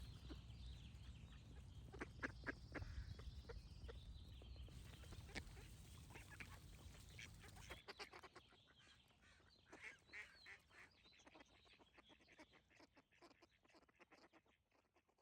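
Ducks quacking quietly in short runs of calls, with birds singing faintly behind them. A low background hum stops about eight seconds in, and the quacking fades out near the end.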